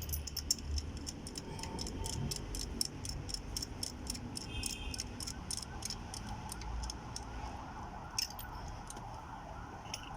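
Ratchet wrench clicking rapidly, about five clicks a second, easing off about six seconds in.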